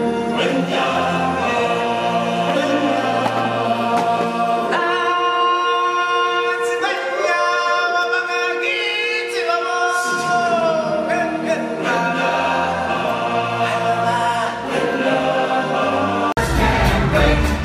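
A choir singing in harmony over a low accompaniment. From about five to ten seconds in, the low part drops out and the voices sing alone. Near the end, louder full music with drums comes in.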